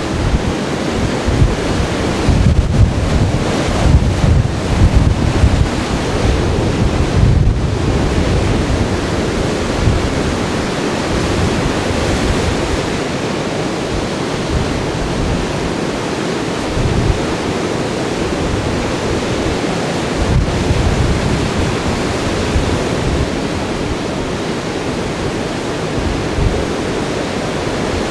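Heavy hurricane-driven surf breaking on a Gulf of Mexico beach, a continuous rush, with wind buffeting the microphone in gusts during the first half before the sound settles to a steadier roar of surf.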